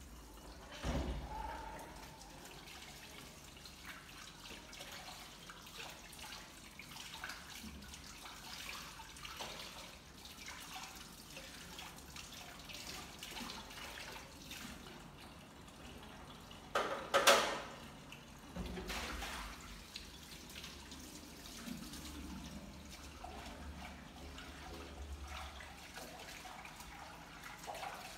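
Dishes being washed by hand at a kitchen sink: water running and splashing from the tap, with scattered small clinks of pots and dishes. A short thump comes about a second in, and one loud clatter about 17 seconds in.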